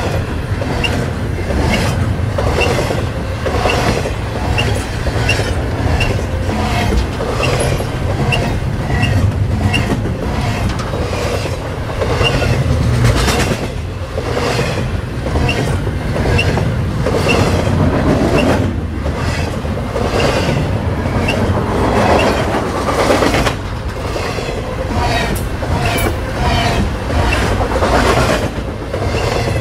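Canadian National double-stack container train's well cars rolling steadily past, a loud rumble with rhythmic clickety-clack of wheels over rail joints and short high squeaks repeating in time with it.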